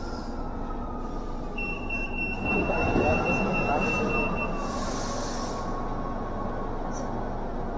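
Metro train car running and coming to a stop at a station, with a slowly falling whine and a steady high tone for about three seconds, then a brief hiss as the doors open.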